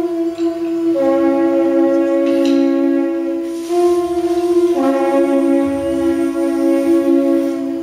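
Horn-like wind instruments blown together in long held notes, two or more pitches at once, shifting to new notes a few times; no drums are being struck.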